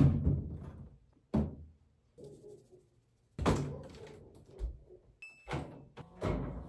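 A string of sharp knocks and thuds, about five, the first the loudest, with quieter rustling handling noise in between.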